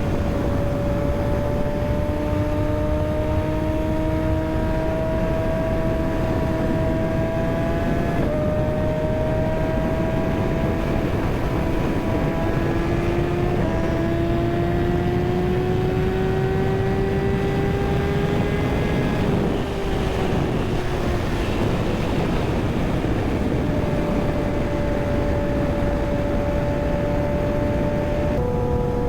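Kawasaki ZX-6R sportbike's inline-four engine pulling through the gears while riding, its pitch climbing steadily, stepping down at a couple of upshifts and dropping away for a few seconds off the throttle midway, under heavy wind rush on the microphone.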